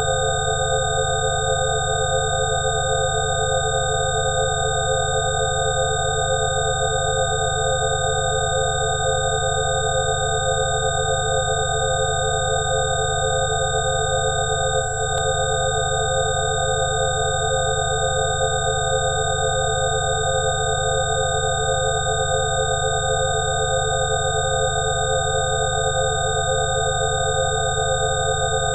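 A drone of layered electronic sine tones at several fixed pitches, some pulsing in a steady wavering beat, over a low hum: a generated 'healing frequency' tone. A faint click about halfway through.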